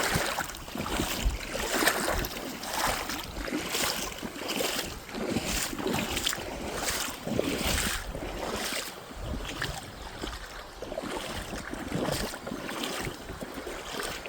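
Wading steps through shallow creek water in waders, each step a splash and slosh, about one a second.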